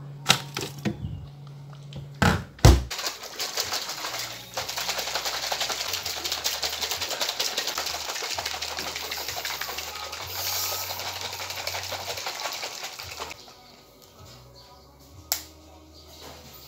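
A few knocks and a loud thump, then a plastic shaker bottle shaken hard for about ten seconds: a dense, fast, even rattle that stops suddenly.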